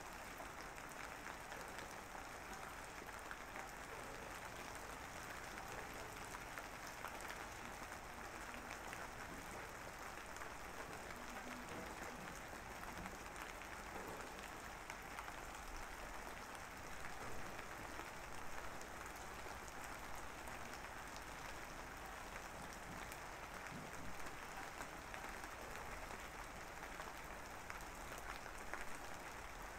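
Steady hissing noise with a fine crackle throughout, without music or speech.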